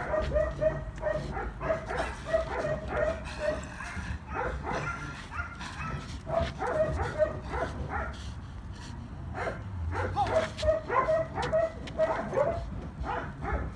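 Working dog on a bite, whining in quick short high notes, about four a second, in one spell at the start and another about ten seconds in, with scuffing clicks in between.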